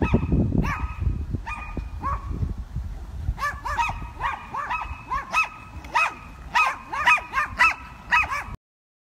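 Two small dogs barking repeatedly in short, high yaps, a few at first and then in rapid volleys, until the sound cuts off abruptly shortly before the end.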